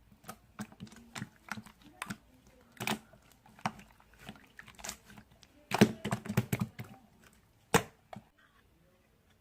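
Clear slime being squished and pressed by hand, giving irregular sticky clicks and small pops, with a dense burst about six seconds in and a last loud click near eight seconds before it goes still.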